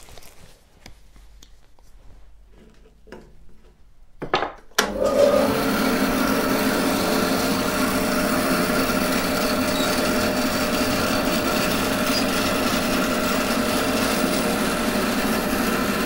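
Bandsaw cutting through a block of red ironbark: a steady sawing noise with a hum under it, starting sharply about five seconds in after a few quiet seconds with light knocks.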